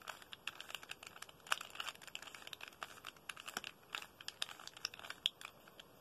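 A 3x3 Rubik's Cube's plastic layers being twisted quickly by hand: a run of irregular clicks and clacks, several each second, a few of them louder.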